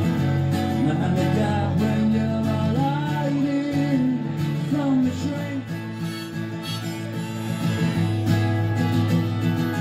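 Acoustic guitar strummed steadily while a harmonica in a neck rack plays a solo line over it, its notes bending up and down.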